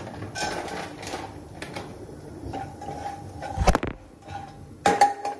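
Kitchen handling noise: a plastic packet rustling and dry pattering over a metal kadai, then loud knocks and bumps from the camera being handled, about three and a half seconds in and again near the end.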